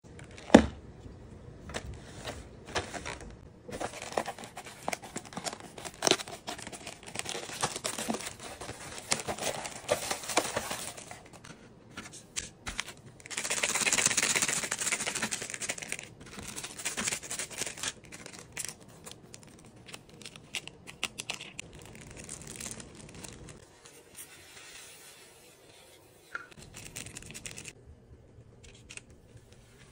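Packaging of an instant cup ramyeon being handled: plastic and paper crinkling and seasoning sachets being torn open and shaken out over the dry noodles. The longest and loudest stretch is a sustained rustle of a sachet about fourteen seconds in, with a sharp tap near the start and lighter handling sounds in the last part.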